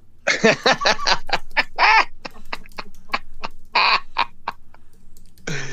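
A man laughing hard in a long run of short, quick bursts, with a louder burst near the end.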